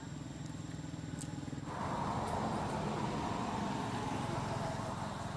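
Motor vehicle engine running: a steady low hum that gives way about two seconds in to a louder, noisier sound.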